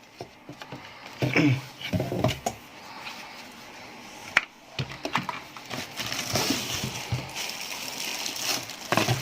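Handling noises from a plastic electric kettle and its cord being unpacked: scattered light clicks and knocks, a sharp click about halfway, and a stretch of rustling near the end.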